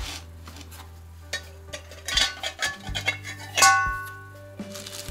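Steel parts of an IKEA Korpon portable charcoal grill clinking against each other while being fitted together, with one loud, ringing metallic clank about three and a half seconds in. A steady background music bed plays underneath.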